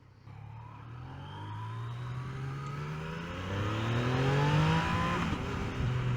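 Yamaha XSR900's 847 cc inline three-cylinder engine accelerating, its pitch climbing steadily. About five seconds in the pitch drops at a gear change and it runs on steady.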